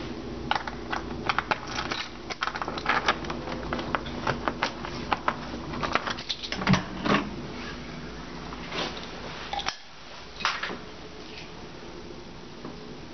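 Keys jangling and clicking in an apartment door lock: a fast run of small rattles and clicks for the first several seconds as the door is unlocked and opened, then a few scattered knocks.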